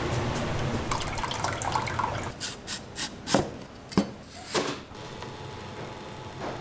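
Chili oil sauce stirred with a skewer, with small liquid bubbling and sloshing sounds. Then a kitchen knife chops broccoli on a cutting board: a quick run of sharp chops, the loudest about three and a half and four seconds in.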